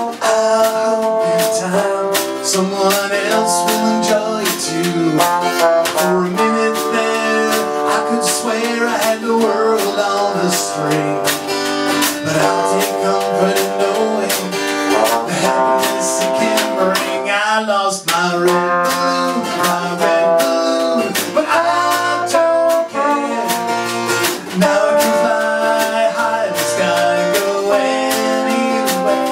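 Band instrumental break: a trombone plays the melody with sliding notes over strummed acoustic guitar and drums.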